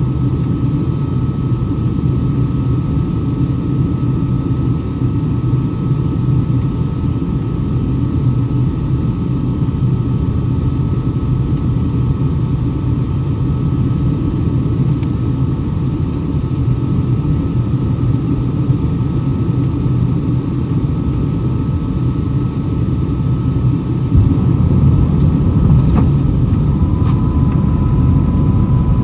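Steady cabin roar of a Boeing 757-200 in flight, its Pratt & Whitney PW2037 engines heard from a window seat, with a deep rumble and a few steady whining tones above it. About 24 seconds in the rumble grows louder, and a few seconds later a new steady whine joins it.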